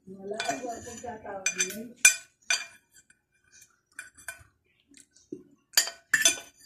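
A fork and spoon clinking against a glass dish while eating, in a string of sharp separate clinks. During the first couple of seconds a low mumbling voice comes from the eater's full mouth.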